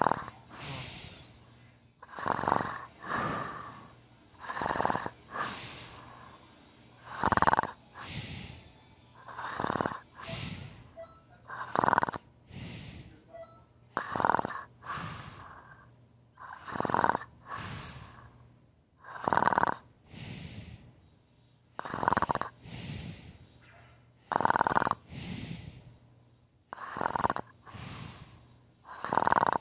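A man snoring heavily in deep sleep: a loud snore about every two and a half seconds, each trailed by a softer second one.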